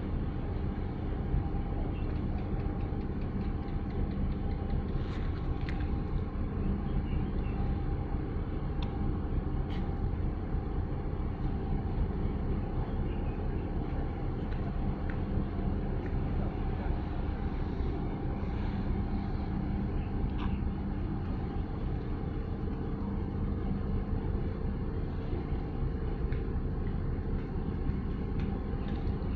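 Steady low engine hum over a rumbling noise, with a few brief faint high squeaks here and there.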